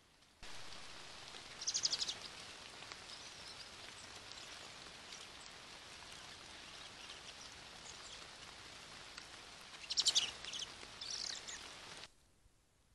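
Steady rain pattering on leaves and the forest floor. A bird's short, fast rattling call comes twice, about two seconds in and again near the end.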